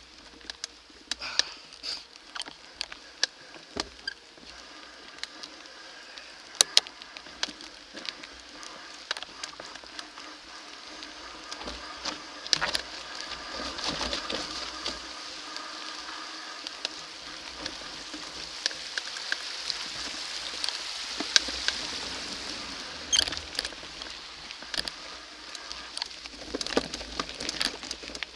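Mountain bike running down a dirt forest trail: the tyres rolling and crunching over dirt and leaf litter, with frequent sharp rattles and knocks from the bike as it hits roots and rocks. A buzzing hiss builds through the middle as speed picks up and eases near the end.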